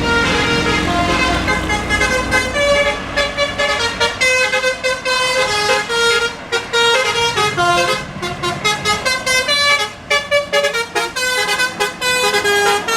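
A bus's Basuri telolet horn playing a quick melody of short horn notes, one after another, with a couple of brief pauses. A low engine rumble lies under the opening seconds.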